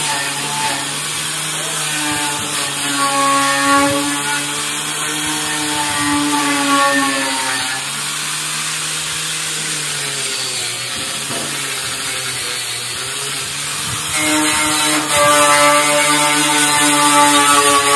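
Handheld power tool's motor whining steadily as it is worked against the rusty metal frame of a tricycle to take the rust off. The whine weakens for several seconds in the middle, then comes back louder near the end.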